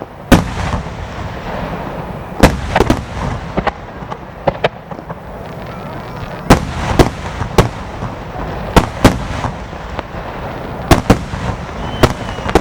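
Fireworks shells bursting in quick irregular volleys, sharp booms a fraction of a second apart in clusters, over continuous crackling and rumbling from the display.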